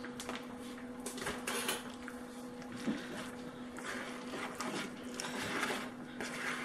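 A spoon stirring and scraping a thick shredded-cheese and ricotta mixture in a mixing bowl: soft, irregular scrapes and rustles, with a few light clicks, over a steady low hum.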